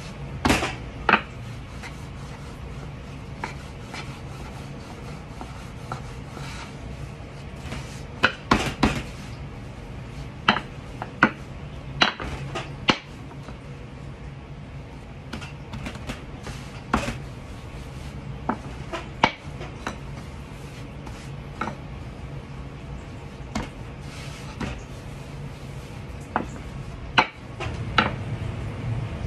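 Wooden rolling pin knocking and clacking against a floured wooden board as thin pancake dough is rolled out, about a dozen scattered sharp knocks at irregular intervals over a steady low hum.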